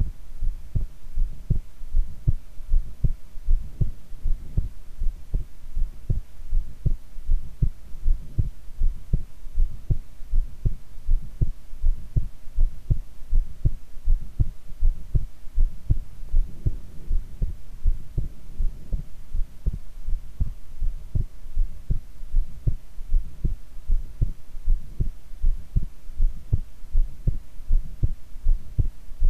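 A woman's heartbeat heard close up through the chest, a steady, even rhythm of deep thuds at a calm resting pace, with a faint steady hum underneath.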